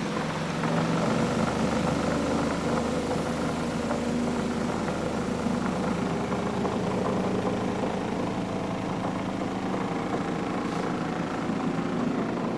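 Spin dryer of a twin tub washing machine running: its motor and spin basket come up to speed about a second in, then hum steadily with a load of wet work pants spinning inside.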